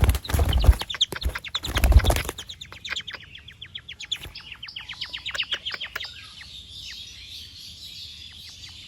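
Birds chirping in a fast run of short, falling chirps, about eight a second, that fades into a denser, fainter chirping. Loud thumping and rustling fill the first two seconds.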